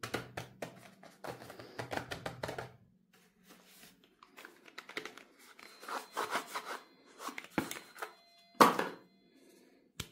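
Fingers tapping and rubbing on cardboard soap boxes, then a box being opened and a soap bar slid out of it, a run of short taps, scrapes and papery rustles. A sharp knock, the loudest sound, comes about two-thirds of the way through.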